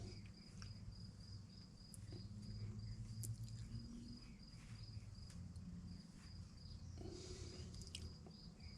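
Faint cricket chirping in an even pulse, about four chirps a second, over a low steady hum, with a few faint clicks.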